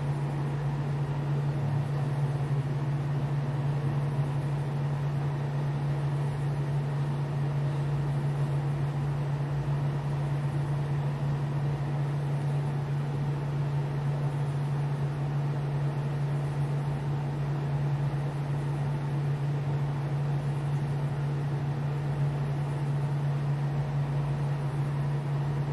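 A steady low electrical hum with a faint hiss over it, unchanging throughout.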